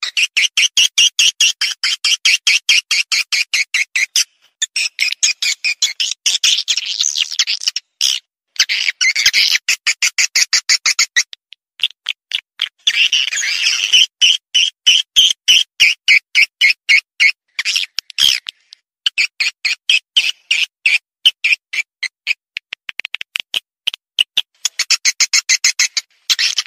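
Swiftlet lure call: fast trains of short, high chirps, about four to six a second, in runs broken by brief pauses. This is the call played to draw swiftlets to a nesting house.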